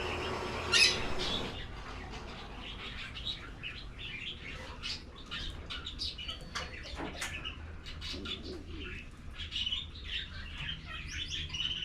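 Many caged canaries chirping and trilling together in a busy, overlapping chorus of short high calls. A short, sharp noise about a second in is the loudest sound.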